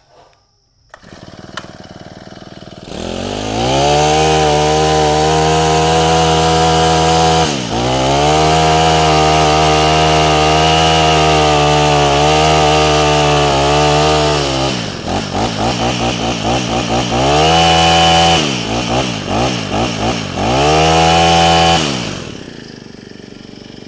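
Honda GX25 four-stroke brushcutter engine idling low, then about three seconds in revved hard to high speed and held there, with a run of quick throttle blips in the middle before dropping back to idle near the end. The revs come up very fast.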